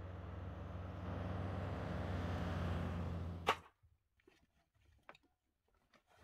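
Jeep TJ Wrangler driving on a paved road, its engine running steadily under tyre noise, cut off by one sharp click about three and a half seconds in. Afterwards only a few faint clicks and knocks of gear being handled in the back of the Jeep.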